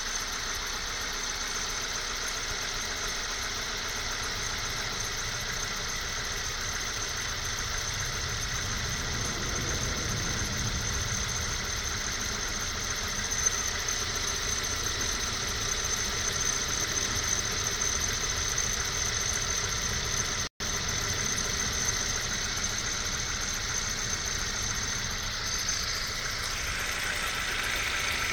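1998 Honda CR-V engine idling cold with a steady high-pitched squeal over the running engine, which the owner suspects comes from the pulley on the A/C compressor.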